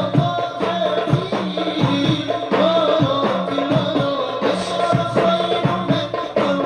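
Sholawat, Islamic devotional songs in praise of the Prophet, sung with hand-drum accompaniment keeping a steady beat.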